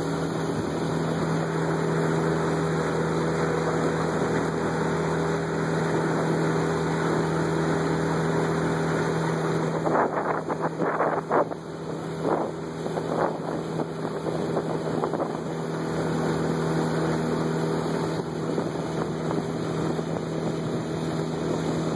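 Motorboat running steadily under way, with wind noise on the microphone. About ten seconds in, the engine's steady hum drops out and a few short gusts buffet the microphone.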